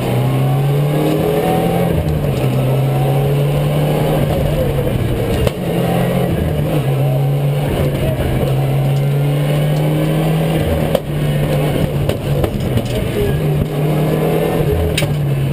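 Rally car engine at high revs, heard from inside the cabin. Its pitch climbs and falls with the throttle and gears, with two brief dips about five and eleven seconds in.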